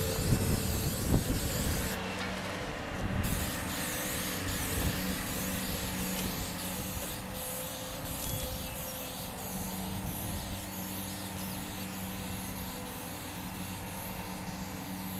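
Aerosol can of cooking spray hissing in long bursts as it coats a foam pool-coping form with release oil, with a short pause about two seconds in. A steady low motor hum runs underneath.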